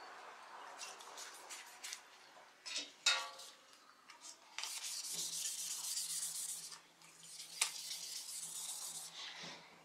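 A brush scrubbing a Damascus steel blade under water in an enamel bucket, with splashing, in two long spells of a few seconds each: the dark etching residue being washed off the blade. A single sharp metal clink comes about three seconds in.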